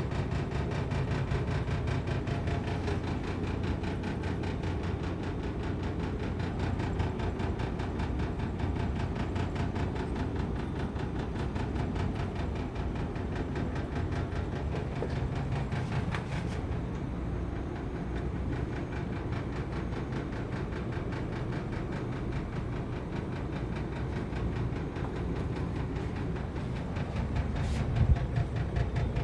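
Panasonic split-type inverter air conditioner's outdoor unit running: a steady low hum with a fast, even pulsing through it and a couple of brief clicks. This is the unexplained abnormal noise the owner hears from the newly installed unit.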